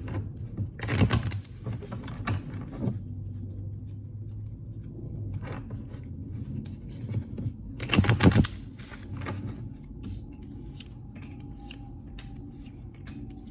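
A deck of tarot cards being shuffled and handled: two bursts of rapid card flutter, about a second in and again about eight seconds in, with lighter clicks of cards in between.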